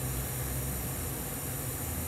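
TIG welding arc laying a tack weld on a carbon steel pipe socket fitting at about 150 amps: a steady hiss with a low hum underneath.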